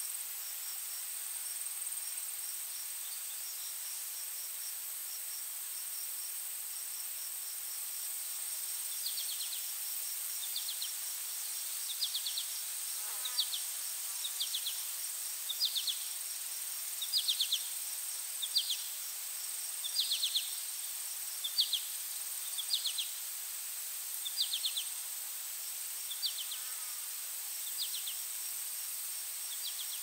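Insects chirping: a steady high-pitched drone with a fast, faint ticking. From about a third of the way in, louder short trilled chirps repeat about every second and a half.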